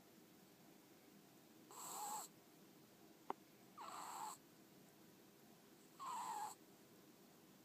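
A sleeping ferret snoring: three short, evenly spaced snores about two seconds apart, each about half a second long. A single sharp click sounds between the first and second snore.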